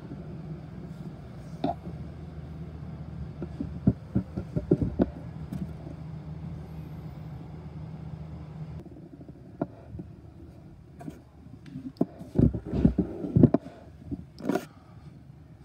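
Field ambience of a soccer game recorded on a phone: a steady low hum that stops about halfway through, with scattered knocks and thumps, the loudest bunched near the end.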